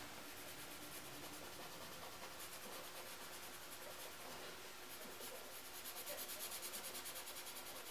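Faint scratchy rubbing of a paper blending stub working graphite into drawing paper, in quick back-and-forth strokes that get a little louder in the second half.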